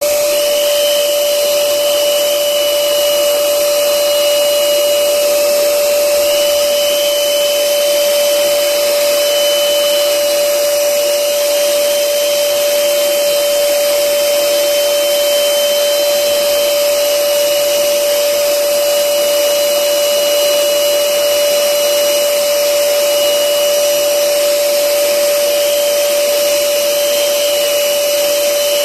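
Electric air blower running steadily with a constant whine, inflating a giant balloon.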